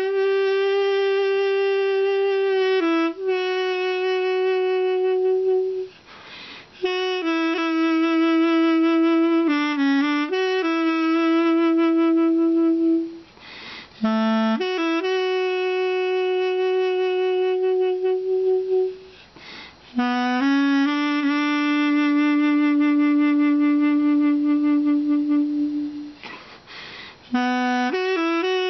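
Solo duduk, the Armenian double-reed pipe, playing a slow melody of long held notes with quick ornamental turns between them. The line breaks off four times for a short breath, which is faintly heard in the gaps.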